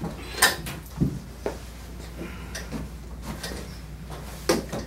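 A few short, sharp knocks and clatters, about four, the loudest near the start and near the end.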